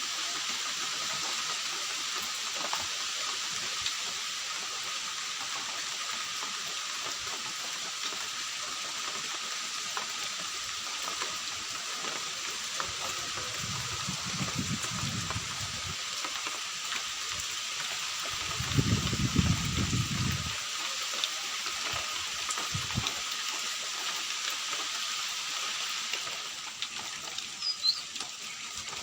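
Steady rain falling, an even hiss, with two brief low rumbles a few seconds apart about halfway through.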